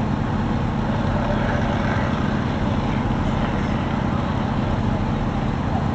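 Fire-truck diesel engines running steadily at a constant pitch, a low drone under a broad rushing noise.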